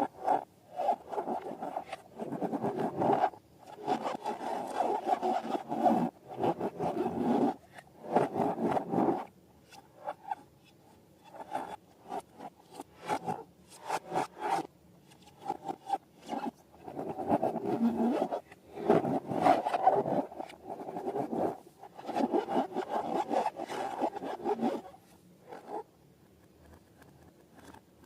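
Rubber balloons and slime being squeezed and rubbed, giving rubbery squeaking and rubbing in repeated bursts of a second or two with short pauses between them.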